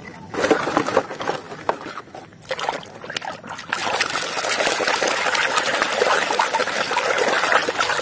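Hands washing a plastic toy in a basin of soapy water: uneven splashing and sloshing with a few sharp clicks of plastic handling in the first few seconds, then steady swishing and trickling.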